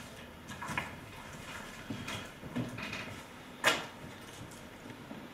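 Faint handling noises of papers and objects on a meeting table, with one sharp knock about two-thirds of the way through.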